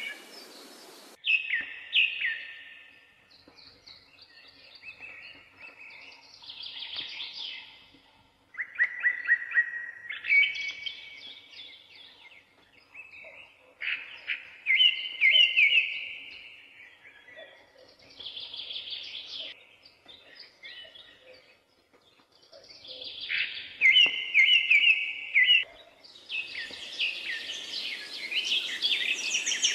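Birds singing in short chirping phrases, a new phrase every couple of seconds with brief pauses between. Near the end the song grows louder and denser over a steady hiss.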